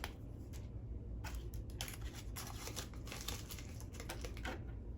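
Dried beans being put into a cardboard rain-stick tube: runs of small clicks and rattles, with some handling crinkle, in two spells about a second and a half long.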